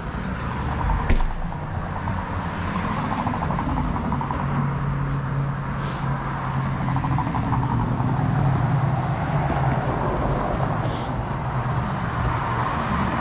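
Street traffic: a motor vehicle's engine running nearby, its hum growing louder toward the middle and then easing off. A single sharp knock about a second in.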